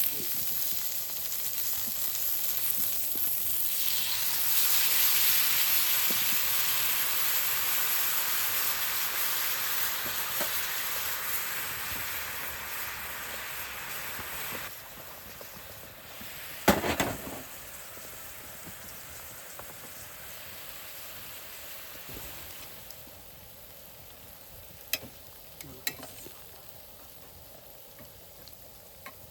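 Food frying in beef tallow on a grill pan over a campfire: a steady sizzle that swells a few seconds in, fades and drops off sharply about halfway through. A single loud knock follows, then a few light clicks near the end.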